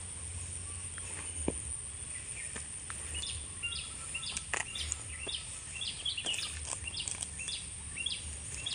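Birds chirping in short, repeated notes from about three seconds in, over a steady high hiss. Earlier there are a few sharp crunches of footsteps on dry leaf litter.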